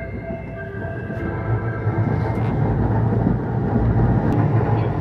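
A JR West electric train's electronic music horn plays its short tune of steady tones in the first couple of seconds. The train's running rumble then grows louder.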